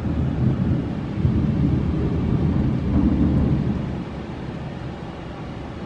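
Thunder: a long, low rumble that swells over the first few seconds and dies away about four seconds in, leaving a steady hiss of the storm.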